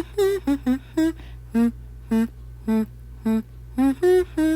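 One voice singing short, wordless staccato notes in a steady rhythm, about two a second, switching back and forth between a low and a higher pitch: a vocal intro to a song.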